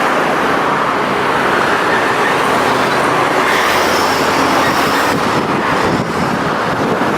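Steady road traffic noise: vehicle engines running and tyres on the road, an even loud rush with no single sound standing out.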